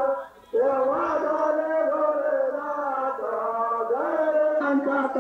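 Chanting with long held notes, played over horn loudspeakers, breaking off briefly about half a second in.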